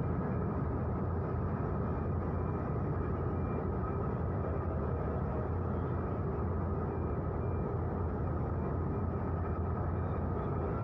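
Steady low drone of a harbour vessel's engine, running evenly without change.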